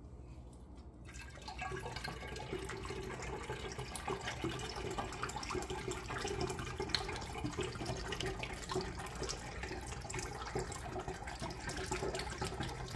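Berry juice pouring in a steady stream through a plastic funnel into a glass gallon jug, splashing into the liquid already inside; the pour starts about a second and a half in.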